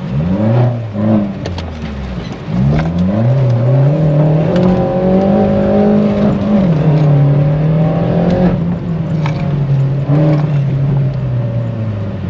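Car engine revving up and dropping back twice in quick succession, then holding steady revs, easing down about six seconds in and again near the end. A few faint knocks over it.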